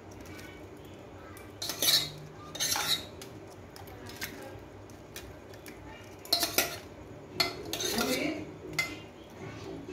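Metal spoon clinking and scraping against a steel plate in several short bursts as spiced potato filling is spooned into pani puri shells.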